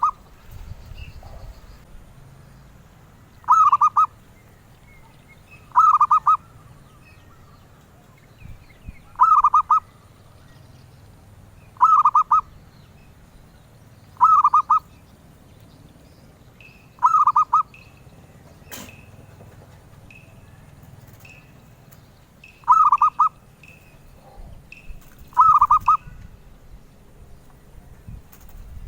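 Zebra dove (perkutut) cooing: a short, trilled coo repeated about every two to three seconds, with one longer pause midway. Faint high chirps sound between the coos, and there is one sharp click about two-thirds of the way through.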